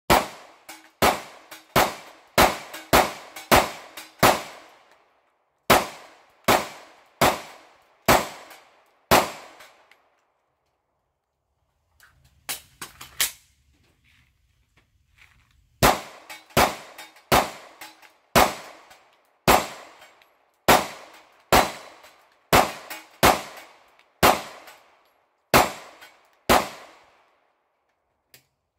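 Sig P365XL pistol fired at steel silhouette targets in quick strings of shots, roughly two a second with short tails after each. A first run of more than a dozen shots is followed by a pause of several seconds with a few faint knocks, then a second run of more than a dozen shots that stops about two seconds before the end.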